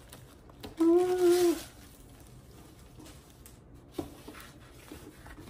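A short, steady vocal tone of under a second, about a second in, with a soft rustle of the paper wrapping on a rolled diamond-painting canvas. A small tap follows near four seconds.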